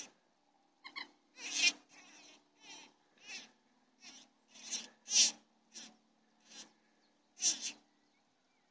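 A leveret (young hare) screaming in distress while a weasel holds and bites it: about a dozen short, high-pitched cries, one or two a second.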